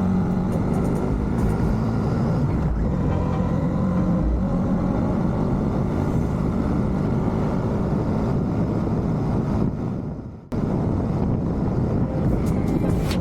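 Royal Enfield Shotgun 650's 648 cc parallel-twin engine running on the move, with steady wind rush over the microphone. The sound sags and then cuts back in suddenly about ten seconds in.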